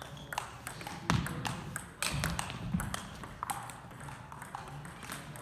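Table tennis ball clicking sharply and irregularly off paddles and the table, with a few dull low thumps about one and two seconds in.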